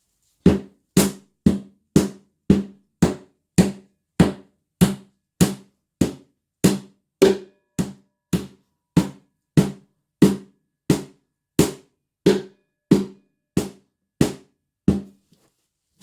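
Steady hammering: repeated blows about two a second, each with a short ringing tone, with a brief pause near the end.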